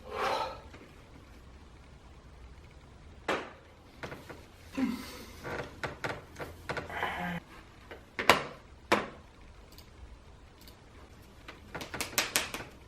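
Scattered knocks and clicks from objects being handled in a small room: single knocks about three, eight and nine seconds in, and a quick run of light clicks near the end.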